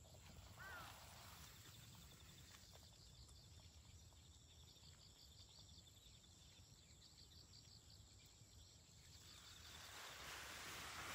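Faint garden ambience: insects chirping in a high, evenly repeated pattern, with a single short bird chirp about half a second in. A hissing, rushing noise swells up near the end.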